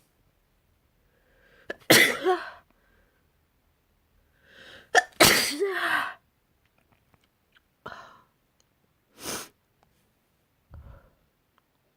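A person sneezing twice, each sneeze preceded by a short indrawn breath; the second sneeze is the louder and longer. Three shorter, fainter breathy sounds follow.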